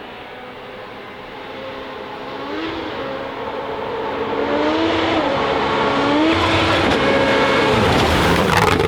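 A WRC Rally1 car's turbocharged engine accelerating hard, its note climbing and dropping back several times as it shifts up through the gears, growing steadily louder as the car approaches. A loud rush of noise comes near the end as it goes by.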